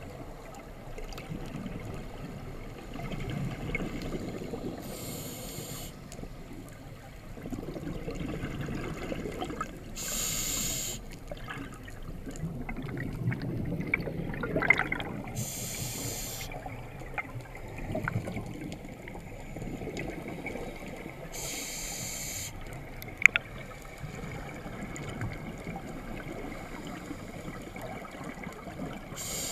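Scuba diver breathing through a regulator underwater: a short hiss of inhaled air about every five to six seconds, each followed by a long low gurgle of exhaled bubbles. A single sharp click about two-thirds of the way through.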